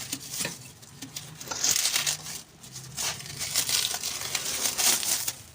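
Hands working a new stabilizer link into place on a car's front suspension: irregular rustling and scraping with scattered small metallic clicks.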